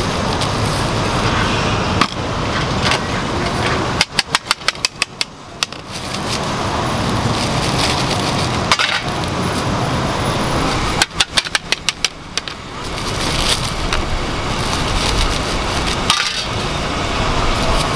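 Two quick runs of knife chops on a cutting board, about six strokes a second and each lasting a second or so, about four seconds in and again about eleven seconds in, over steady street traffic noise.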